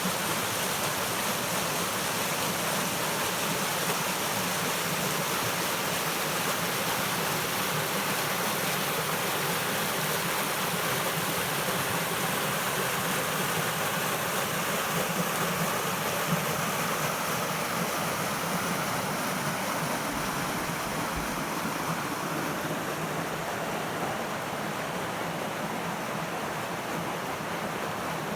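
A small moorland river rushing and splashing over rocks into a pool by a little waterfall, a loud steady rush of water.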